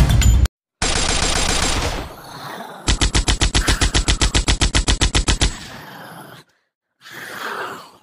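Machine-gun sound effect: a rapid, even string of shots, about nine a second, lasting some two and a half seconds, with a second-long burst of hiss before it. A breathy, groan-like sound follows near the end.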